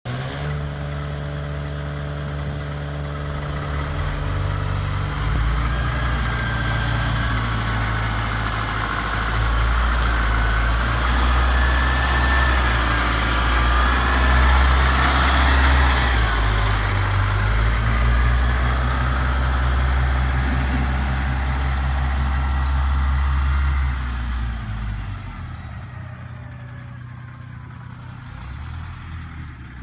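Caterpillar 920 wheel loader's diesel engine running with a steady low drone as the loader drives past close by, fading near the end as it moves away.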